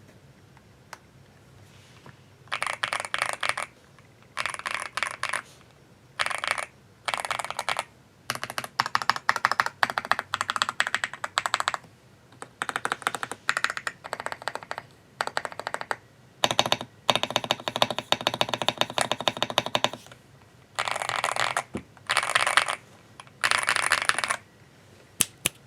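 GMK67 mechanical keyboard with Leobog Graywood V3 linear switches being typed on in quick bursts of keystrokes, each burst a second or two long with short pauses between, starting about two and a half seconds in.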